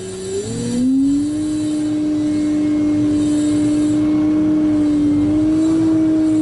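Excavator running under load: its engine and hydraulic pump whine rise in pitch about half a second in, then hold a steady tone, nudging slightly higher near the end.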